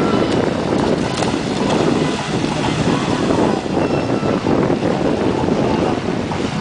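Wind buffeting the microphone in a steady rumble, over small waves washing in shallow sea water.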